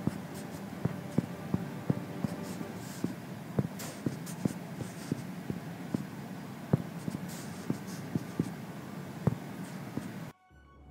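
Typing on an iPad's on-screen keyboard: irregular light taps of a fingertip on the glass, two or three a second, over a faint steady room hum. It cuts off suddenly shortly before the end.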